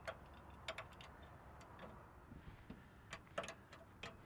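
Faint, irregular clicks and taps from a ratcheting box-end wrench and a square LED light being handled while the light is bolted to its mount.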